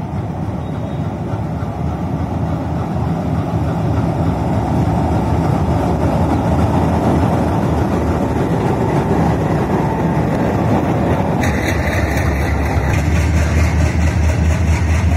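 Two diesel locomotives hauling a passenger train pass close by with their engines running, getting louder as they approach. About eleven seconds in, the coaches take over and their wheels rumble and clatter over the rails, with more hiss higher up.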